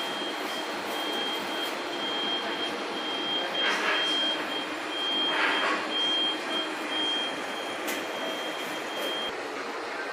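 An electronic beeper sounding one high-pitched tone over and over in short and longer beeps, stopping about nine seconds in, over steady room hiss. Two brief rushing noises come through about four and five and a half seconds in.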